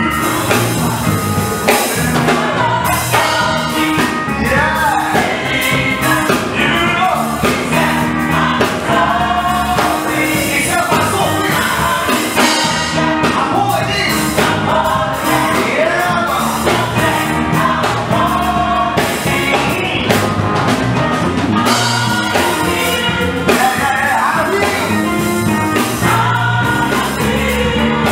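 Gospel choir, men's and women's voices together, singing into microphones over a live band with drums and a steady beat.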